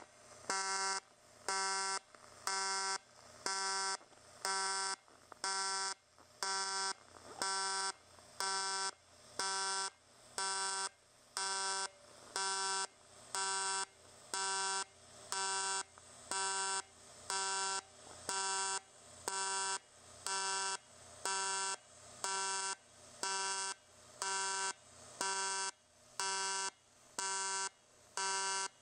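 AC TIG welding arc on aluminum sheet, buzzing at a pitch set by its 200 Hz AC frequency. The buzz swells loud and drops back about once a second as the pulse switches between peak and background current.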